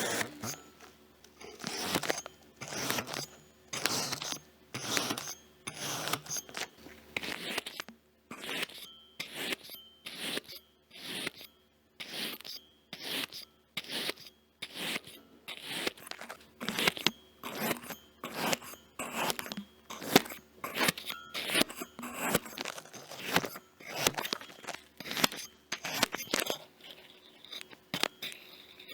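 Crunchy kinetic sand being cut: a crisp crunch with each cut, in a steady run of short strokes about one or two a second.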